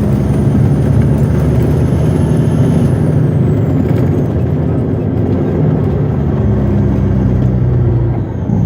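Western Star logging truck's diesel engine running steadily under way, a low drone with road noise, heard from inside the cab; the engine note eases briefly near the end.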